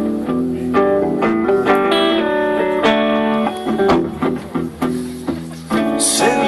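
Electric guitars played live, picking a quick run of notes over chords as an instrumental passage.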